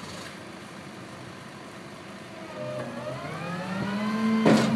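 Small rear-loader garbage truck's engine speeding up, its pitch rising through the second half, with one loud bang near the end.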